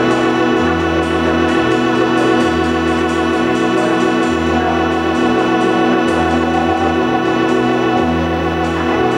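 Electric organ holding a sustained chord while an electric bass below it swaps between two low notes about every three-quarters of a second, with light cymbal strokes in the background, in a slow psychedelic-rock jam.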